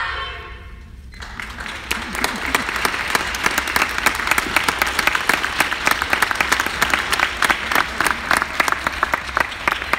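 Audience clapping, starting about a second in, quickly building and then holding steady. A voice is heard briefly at the very start.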